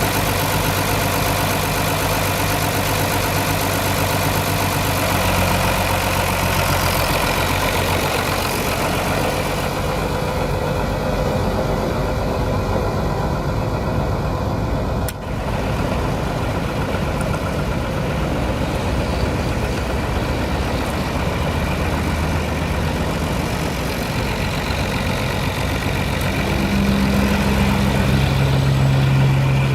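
Ford 9600 tractor's six-cylinder diesel engine idling steadily, with a momentary drop about halfway through and the engine speed picking up a little near the end.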